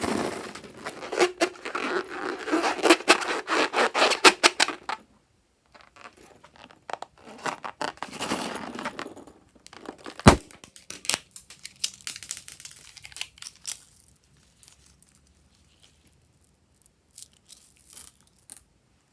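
Slime-filled rubber balloon being cut open and its slime squeezed out: dense crinkly tearing and sticky crackling, one sharp snap about ten seconds in, then thinning to a few small clicks.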